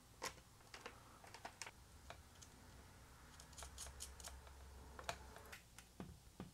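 Faint, scattered small clicks and ticks of metal hardware as nuts are threaded by hand onto screws through a metal mounting plate.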